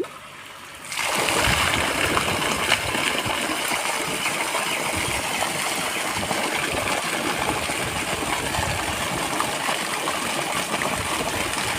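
Sewage mud pump discharging: water suddenly gushes out about a second in and then pours steadily.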